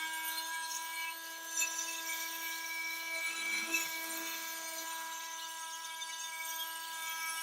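Oscillating multi-tool with a semicircular diamond blade grinding grout out from between tiles: a steady high motor whine over a gritty rasp. The pitch rises slightly right at the start.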